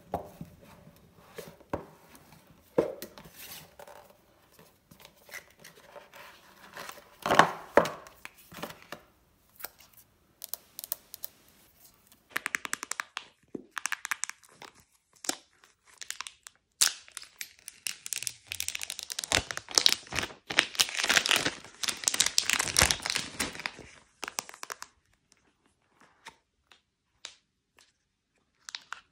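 Hands unboxing a smartphone. First come scattered taps, clicks and scrapes of fingernails on a cardboard box. About halfway through there is a long stretch of crinkling and tearing as the box's packaging seal is torn off, then a few quiet handling sounds as the lid comes off.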